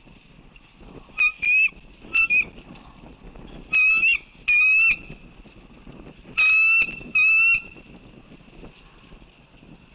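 Bald eagle calling: a series of short, high-pitched chattering calls that come in pairs, loud enough to overload the microphone.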